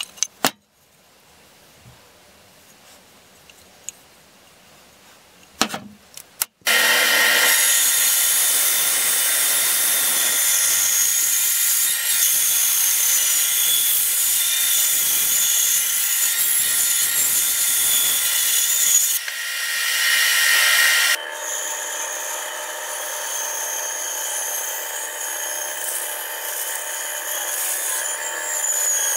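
Bandsaw cutting an axe-handle shape out of a wooden blank: a loud, steady cutting noise with a high whine, which comes in abruptly about six and a half seconds in after a quiet stretch with a couple of light knocks. Around two-thirds of the way through the sound shifts abruptly and drops to a lower level.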